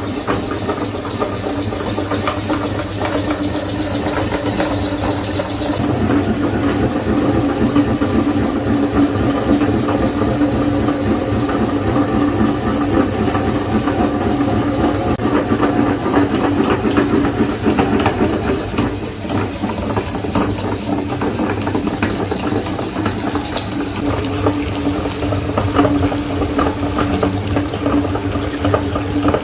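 Electric meat grinder running: a steady motor hum with a fast rattle.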